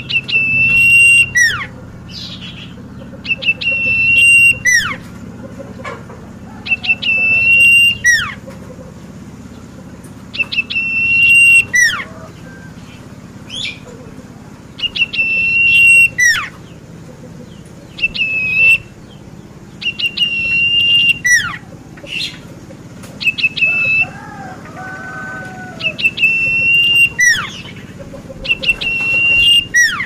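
Caged cipoh songbird singing the same short whistled phrase over and over, about every four seconds: a quick run of high notes, a held note, then a falling slur.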